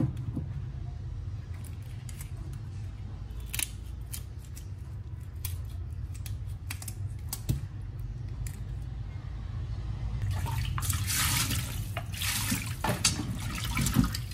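Kitchen scissors snipping through dried snakeskin gourami, scattered sharp clicks over a steady low hum. From about ten seconds in, water splashes and sloshes as the fish are rubbed clean by hand in a steel bowl of water in the sink.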